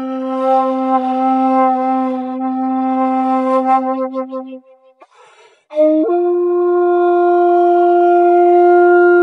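Shakuhachi bamboo flute playing slow held notes: one low, breathy note sustained for about four and a half seconds, a short pause with breath noise, then a higher note that slides up into pitch as it starts and is held.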